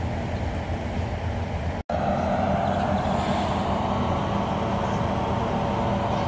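Locomotive engine idling steadily, a continuous low rumble. The sound cuts out for an instant just before two seconds in, then the rumble carries on with a stronger mid-pitched hum.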